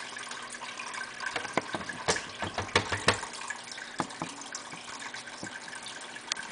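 Water trickling steadily from a small terrarium water pump. A run of sharp clicks and taps sounds over it from a little over a second in to about four seconds, with one more near the end.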